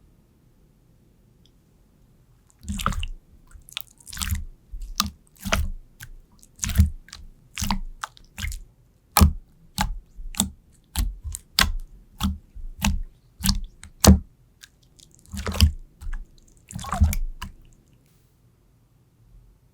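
Slime being squished and pressed by hand: a string of wet clicks and pops, about one or two a second, with a few longer squelches among them. It starts a few seconds in and stops about two seconds before the end.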